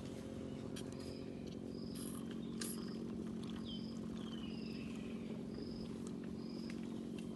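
A low, steady, purring drone that holds one pitch without a break. Over it, a bird repeats a short high chirp about once a second, with a falling whistle about a second and a half in.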